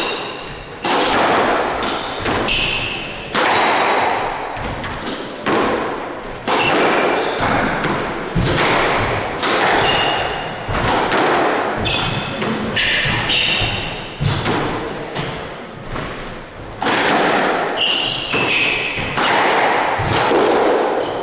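Squash rally: the rackets strike the ball and it smacks off the walls every second or two, each hit ringing in the enclosed court, with shoes squeaking on the wooden floor between shots.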